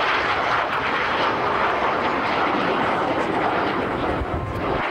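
Jet noise from Blue Impulse Kawasaki T-4 twin-turbofan display jets flying past: a steady, loud rushing roar that eases slightly near the end.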